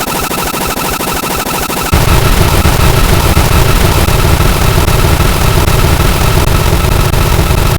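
Extremely loud, harsh, heavily distorted noise with a fast pulsing. About two seconds in it jumps even louder and a deep rumble is added underneath.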